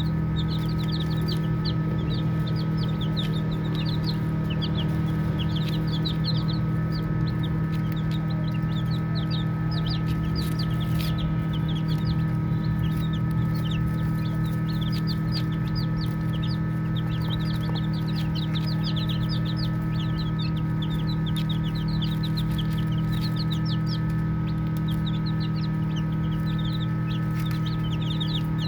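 A group of baby chicks peeping: many short, high, downward-sliding peeps overlapping almost without pause, thinning briefly a few times. A loud, steady low hum runs underneath.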